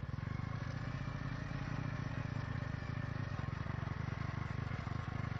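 Motorcycle engine running steadily at a cruising pace while riding along an unpaved dirt track, with road and wind noise over the engine's low, even pulsing.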